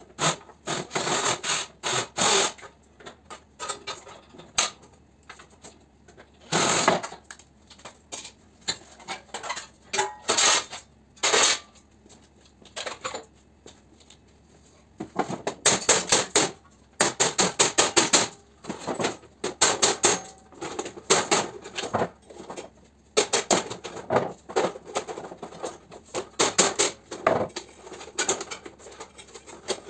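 Sheet-metal parts of a fan coil unit clattering and rattling as they are pried and pulled apart by hand, in irregular bursts of sharp metallic clicks and knocks with short pauses between.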